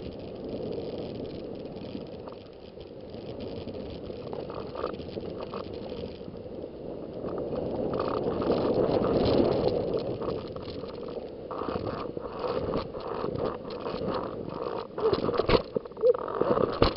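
Snow hissing and scraping steadily under a rider sliding down through deep fresh powder, swelling to its loudest about halfway through. In the last few seconds, a string of sharp knocks and rattles joins it.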